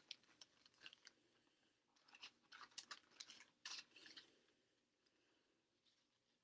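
Faint, crisp clicks and rustles of paper receipts being handled, a short cluster of them between about two and four seconds in.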